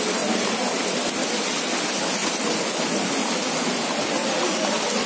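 Heavy rain pouring down steadily, an even, unbroken hiss of rain on the street and surrounding surfaces.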